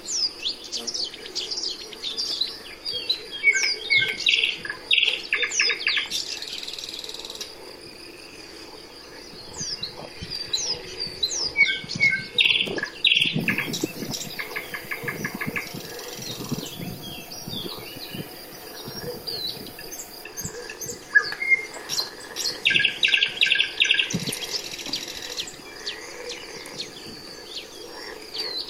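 Songbirds singing together: many short, sharp down-slurred chirps, with a few rapid trills of quickly repeated notes.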